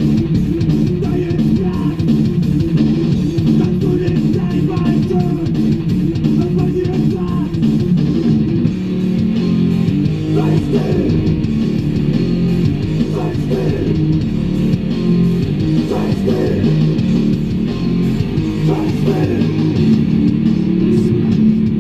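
Rock music with heavy electric guitar and bass guitar playing continuously.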